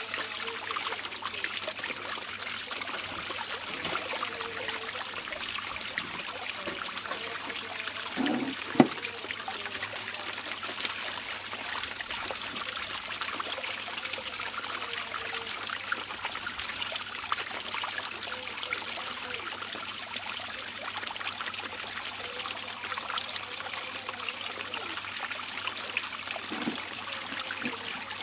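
Water swirling in a whirlpool and draining down a hole in the bottom of a plastic basin: a steady rushing trickle. A sharp knock sounds once about eight seconds in.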